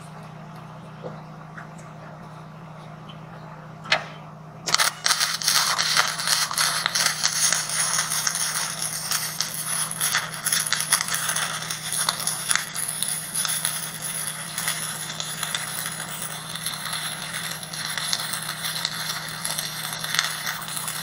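Electric arc welder striking an arc about five seconds in, then crackling steadily as a bead is laid joining a steel angle leg to a steel tank. Before the arc there is a steady low hum and one sharp tap about four seconds in.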